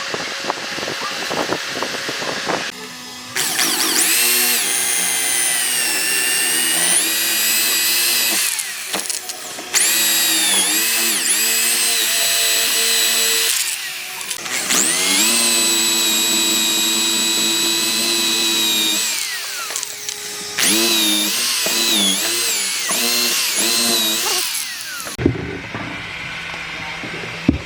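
Electric power tool motor whining in several long runs, its pitch sagging and recovering again and again as it is loaded in the wood. Light ticking and tapping in the first few seconds, before the motor starts.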